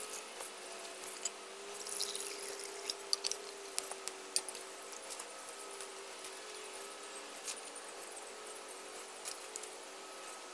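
Water poured from a measuring cup into a small stainless steel pot near the start, then scattered sharp crackles and clicks from small oak sticks burning in a wood-burning camp stove as the pot is set on it.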